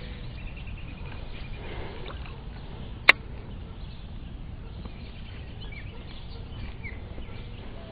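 Steady low outdoor rumble with faint bird chirps, and one sharp click about three seconds in, the loudest sound.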